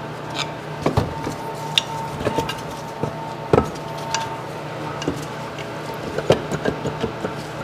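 Sporadic metal clinks and knocks as the Sea-Doo 951 DI's crankshaft and counterbalance parts are handled and shifted in the open aluminium crankcase, over a steady low background hum.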